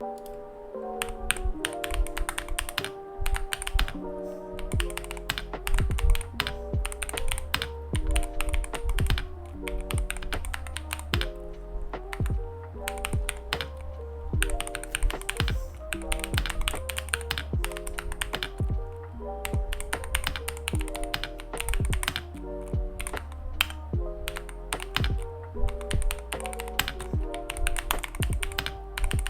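Typing on a Keychron V2 mechanical keyboard with white jade switches and transparent MDA-profile PBT keycaps: a fast, irregular run of keystroke clicks. Background music with a bass line plays underneath.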